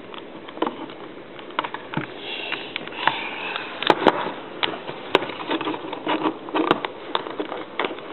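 Handling noise of a case being clipped onto an iPhone 2G: irregular clicks and taps of the case and phone under the fingers, with some rubbing and a few sharper clicks in the middle.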